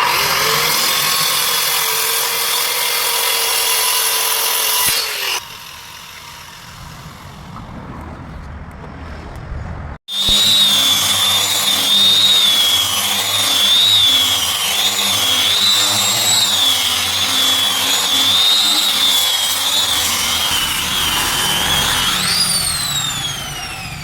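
Electric woodworking power tools working wood. One runs steadily and stops abruptly about five seconds in. After a cut, a high-pitched motor whine wavers up and down under load, then winds down in a falling pitch near the end as the motor spins down.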